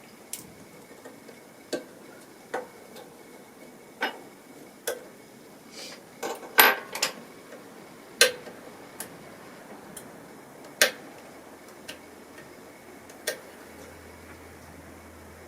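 Small metal repair tools clicking and tapping against an opened iPhone XR, with about a dozen sharp, irregular clicks a second or so apart and a louder flurry a little past the middle.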